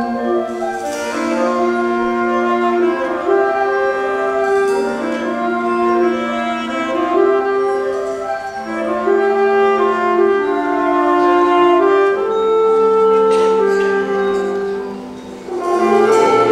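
Student concert band of saxophones, clarinets, brass and percussion playing slow, held chords. The sound dips briefly about fifteen seconds in, then swells into a loud, full closing chord near the end.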